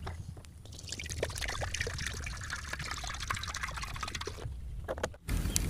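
Water pouring from a plastic jerrycan into a metal pan, a steady stream that stops abruptly about four and a half seconds in.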